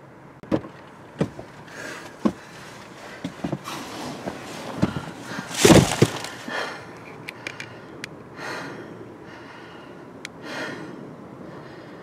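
A string of irregular knocks, clicks and rustling, with the loudest thump about halfway through.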